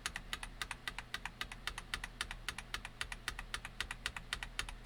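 Fast typing on an Epomaker TH98 mechanical keyboard with Gateron Red linear switches: a rapid, even run of key clacks, many strokes a second.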